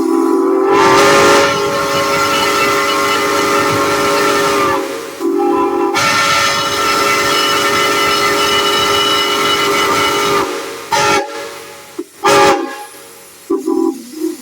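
A steam whistle blowing in long and short blasts: two long blasts of about four seconds each, split by a short toot, then several short toots toward the end, each over a hiss of escaping steam.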